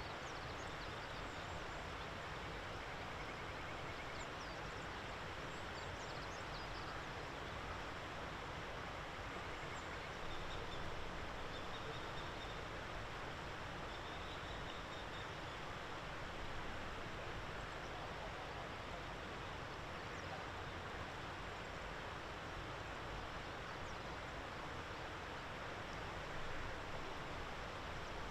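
Steady outdoor background noise with faint, high-pitched bird calls now and then.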